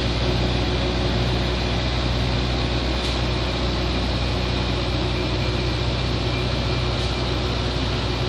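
Heavy diesel truck engine idling steadily, a constant low hum.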